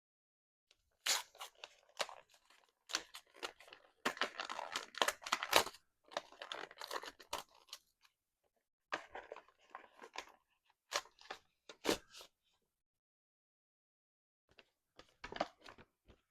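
Paper and plastic packaging rustling and crackling in irregular bursts as the contents of a pistol box are handled, busiest around four to six seconds in, pausing, then briefly again near the end.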